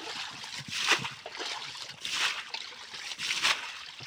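Shallow muddy water sloshing and splashing as people wade through it, in a few separate splashes roughly a second apart.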